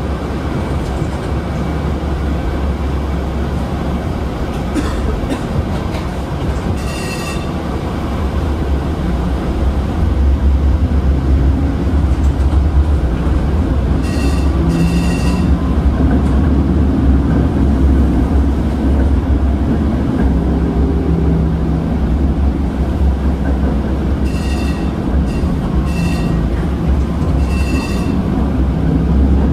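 A PCC streetcar running along its tracks, heard from inside the car: a steady low rumble of wheels and motors that grows louder about a third of the way through. Short high dings sound several times, some of them in quick pairs.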